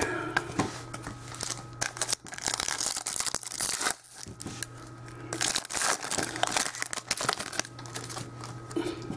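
Foil wrapper of a football trading-card pack being torn open and crinkled in the hands, an irregular run of crackles and rips that is busiest a few seconds in.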